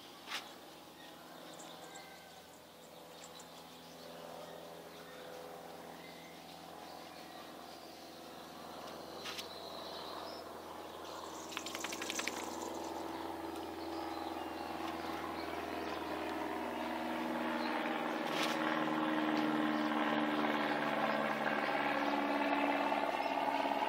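A distant engine's drone, a stack of steady tones that slowly shift in pitch while it grows steadily louder. A few short clicks and a brief rattle come about twelve seconds in.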